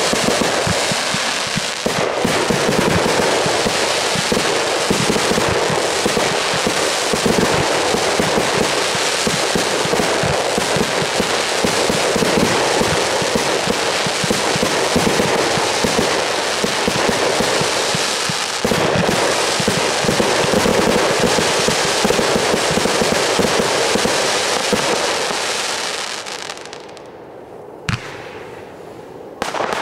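Fireworks barrage: rising comets and aerial shells launching and bursting, many bangs overlapping into one continuous loud stretch. It dies away near the end, leaving two single sharp bangs.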